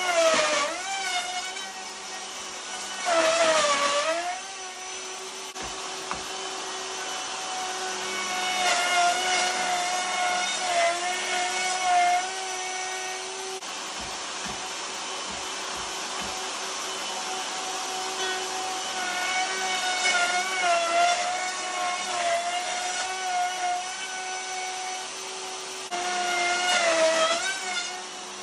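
Electric router running on a sliding jig, planing flat a thick timber tabletop: a steady high whine that dips in pitch briefly several times as the bit cuts, near the start, around three to four seconds in and near the end.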